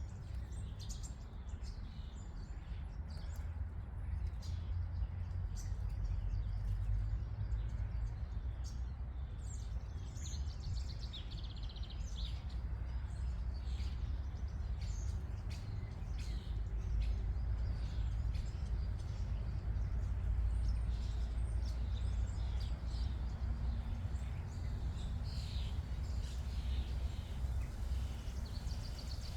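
Wild birds chirping and singing in short, scattered calls, over a steady low rumble.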